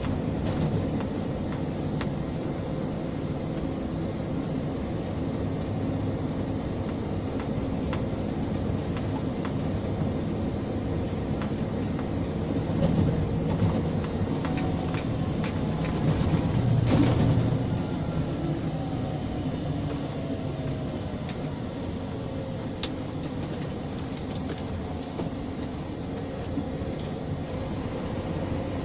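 Scania G460 truck heard from inside the cab while driving with a heavy load: the diesel engine runs steadily with tyre and road noise and a few light clicks and rattles. The drone swells briefly a little past halfway.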